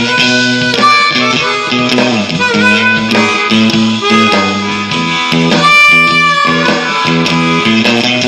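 Blues jam: a Hohner Marine Band harmonica playing held and bent notes over a Jackson guitar, with a long held high harmonica note about six seconds in.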